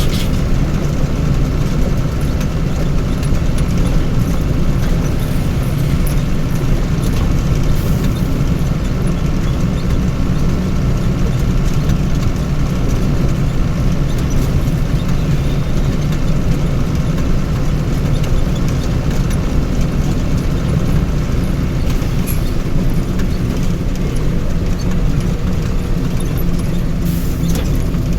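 Vehicle engine running steadily with a continuous low rumble.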